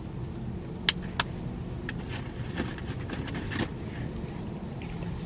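A low, steady rumble inside a car, with two sharp clicks about a second in and light handling rustles and taps after.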